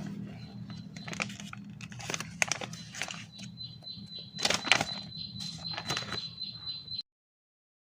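A string of sharp clicks and knocks, irregular, over a faint low hum, cutting off abruptly about seven seconds in.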